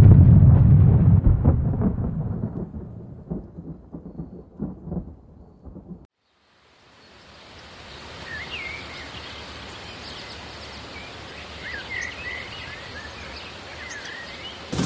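A thunderclap that rumbles and fades away over about six seconds. After a second of silence, a steady hiss comes in, with birds chirping over it for a few seconds.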